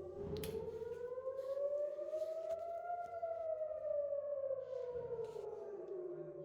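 Civil defense siren wailing. Its pitch rises slowly for about three seconds, then falls back: an Israeli rocket-attack alert.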